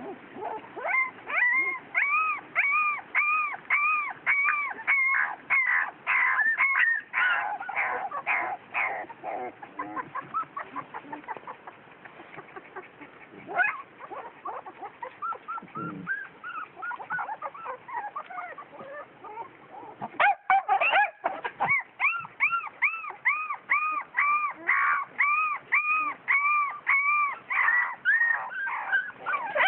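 A small dog barking in quick, even series of high-pitched yaps, about two a second: one long run, a lull with a few scattered yaps, then a second long run near the end. It is the mother dog's defensive barking at a larger dog near her puppies.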